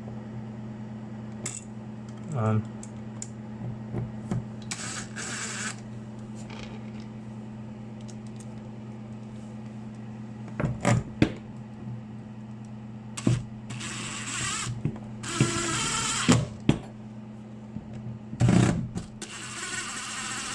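Wiring being folded and a switch and outlets pushed into an overfull metal electrical box: scattered sharp metal and plastic clicks and knocks, with rustling scrapes lasting about a second, over a steady low hum.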